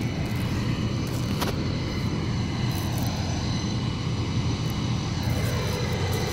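A steady, low engine drone whose tone slowly sweeps up and down, with a single sharp click about a second and a half in.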